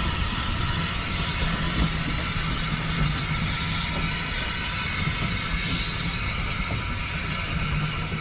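Steam train passing close by: Bagnall 0-6-0 saddle tank No. 401 hauling a rake of carriages, the wheels rolling over the rails with a steady rumble and hiss.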